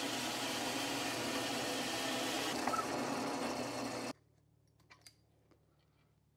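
Drill press running with a hole saw cutting into a wooden board, a steady machine sound that stops abruptly about four seconds in. Near silence follows, with a couple of faint clicks.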